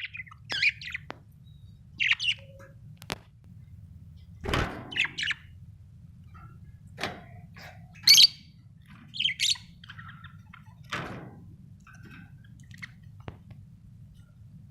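Pet budgerigars chirping in short high calls every second or two, with a few dull knocks in between.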